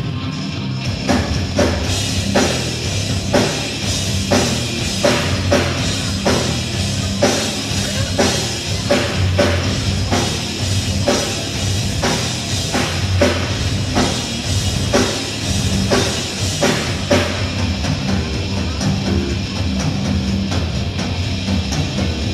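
Live rock band playing: electric guitars over a drum kit, with hard drum hits about twice a second that drop away for the last few seconds while the guitars carry on.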